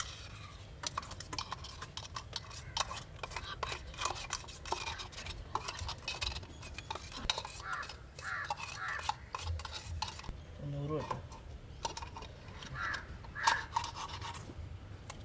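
Ghee being scraped out of a metal tin into an aluminium pot: a run of small metallic clicks and scrapes, thinning out after about ten seconds.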